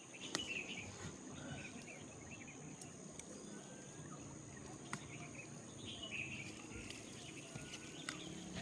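Rural outdoor ambience: scattered short bird chirps over a steady, high-pitched insect drone, with a few faint clicks.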